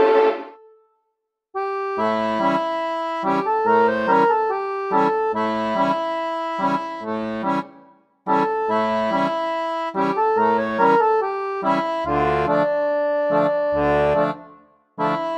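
Background music in repeated phrases of held notes over a bass line, cutting out to silence briefly about a second in, again about halfway, and near the end.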